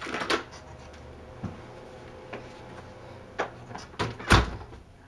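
An interior door being opened and handled: a few sharp clicks and knocks from the latch and door, then a heavy thud, the loudest sound, a little over four seconds in.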